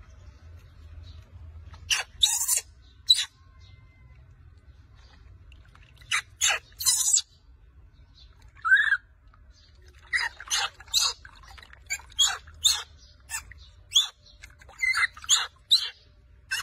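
Baby macaque crying in short squeals and screeches. A few come about two seconds in and around six to nine seconds, then a rapid string of them over the last six seconds.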